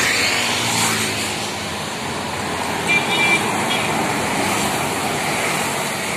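Road traffic passing close by: a container lorry and motorcycles go past with engine and tyre noise. A short, high horn beep sounds about three seconds in.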